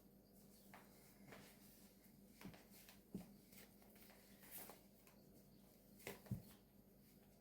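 Near silence broken by a few faint, soft clicks and rustles from handling a doll while pulling its trousers on. The most distinct knock comes about six seconds in.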